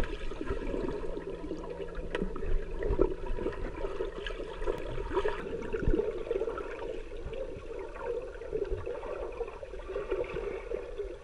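Muffled underwater sound of a swimming pool picked up by a submerged camera: churning water and crackling bubbles as a golden retriever and a swimmer paddle past. A low steady hum runs under it for about the first five seconds.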